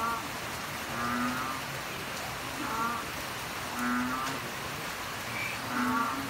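Animal calls: short, low croaking calls, each under half a second, repeating about every second and a half over a steady hiss.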